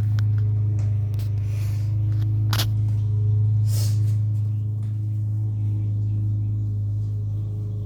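An electric alarm clock's buzzer sounding a steady low buzz, with a few clicks and bumps about two and a half and four seconds in.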